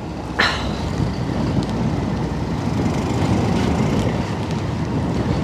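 Wind rumbling on the microphone over the low drone of a fishing boat, with a single sharp click about half a second in.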